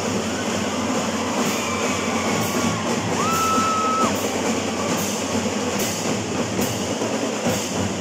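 Elementary school drum and lyre band playing: snare and bass drums beat a dense, steady cadence with accents about once a second. A single held high note sounds about three seconds in.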